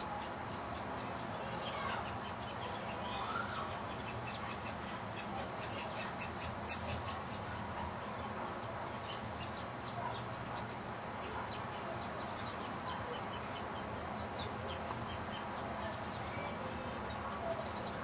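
Woodpecker nestling begging for food at the nest hole: a rapid, unbroken run of short, high squeaky calls.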